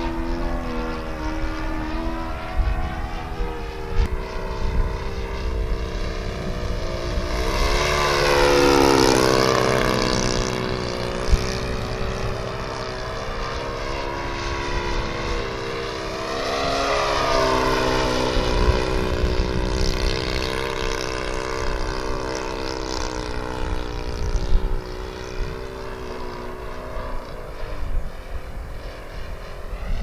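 OS 52 four-stroke glow engine running on a radio-controlled model airplane in flight, a steady engine drone whose pitch rises and falls as the plane passes. It is loudest about nine seconds in, with a second pass around seventeen seconds.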